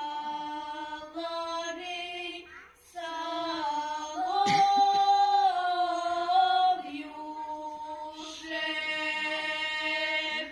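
Unaccompanied female singing of a Russian folk song, long held notes in slow phrases with short breaths between them. The last phrase stops just before the end.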